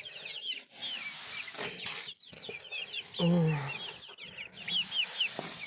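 Young chickens peeping continuously, many short high cheeps overlapping. A lower, falling call sounds briefly about three seconds in.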